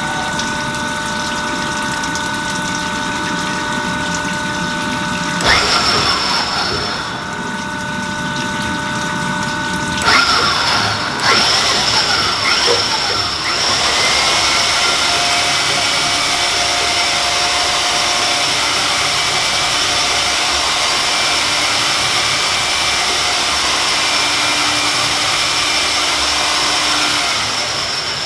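Cylinder-honing machine running on an engine block bore, with coolant pumping and splashing; the machine's sound changes abruptly about five seconds in and again about ten seconds in, then runs steadily.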